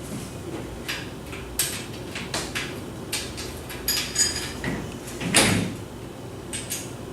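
Steel treestand parts clinking and knocking in a string of short, irregular clanks as the front support is bolted to the platform, with bolts, washers and nuts being fitted; the loudest knock comes about five and a half seconds in.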